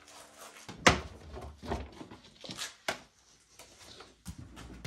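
Carpeted trunk floor panel of a BMW E60 being lifted out and handled: a sharp knock about a second in, then a few softer knocks and rustles.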